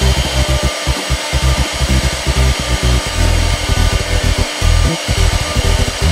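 CNC router spindle running steadily with a continuous whirring hiss as it cuts wood, over background music with a pulsing bass line.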